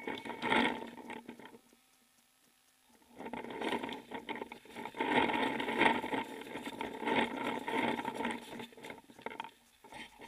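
Footsteps and rustling through dry fallen leaves and grass, crackly and irregular, in two spells with a quiet gap of about two seconds between them.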